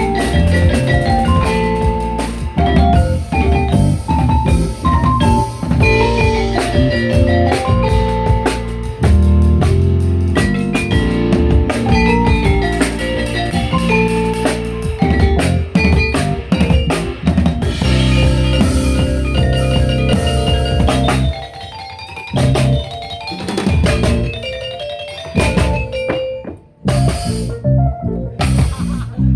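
Live fusion band playing at a sound check: drum kit with kick and snare under fast melodic instrumental lines. The playing thins out about 21 seconds in and breaks off briefly near the end before the drums come back in.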